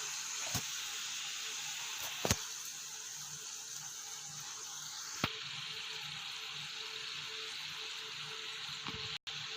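Snacks of rava-and-maida dough deep-frying in hot oil, sizzling steadily, with three sharp clicks in the first half.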